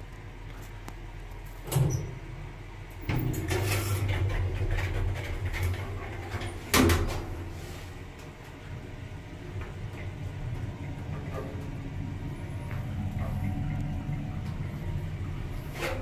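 2001 Lift Katowice passenger lift shutting its doors and setting off upward: a knock about two seconds in, a longer sliding rumble from about three seconds, a second sharp knock near seven seconds, then a steady low hum of the car travelling up.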